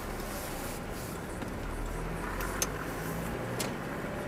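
Steady engine and road noise heard from inside a moving car through a dashcam's microphone, with a couple of faint clicks about two and a half and three and a half seconds in.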